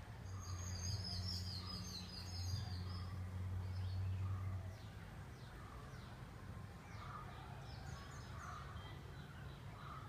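Birds chirping, with short high calls and quick falling notes. For the first half a steady low hum sits underneath, then stops.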